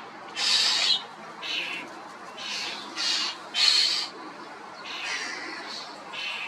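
Common starling giving a series of harsh, rasping calls, each about half a second long, roughly one a second.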